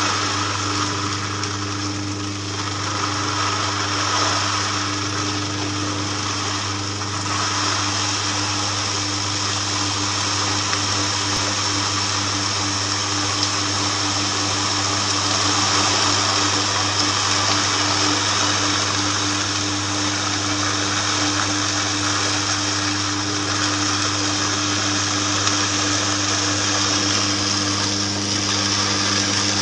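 Electric screw-type juicer running steadily, its motor humming under a gritty grinding noise as it crushes cacao nibs into cocoa paste.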